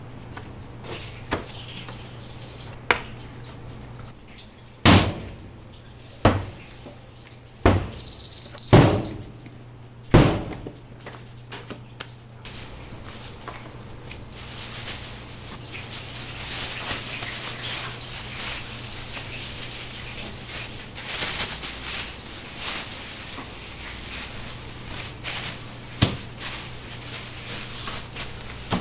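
Kitchen work noise: a run of sharp knocks and thumps over a steady low hum, with a short high beep about eight seconds in. From about fourteen seconds a dense crackly hiss joins them, with another knock near the end.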